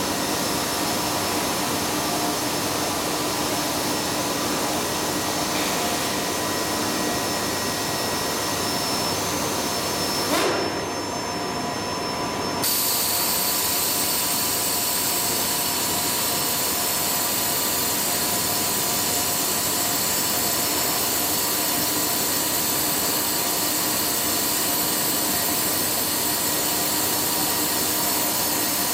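Industrial wide-format inkjet printer running: a steady airy whir with a few constant humming tones. About ten seconds in there is a brief rising-and-falling whine, and the hiss goes duller for a couple of seconds before coming back.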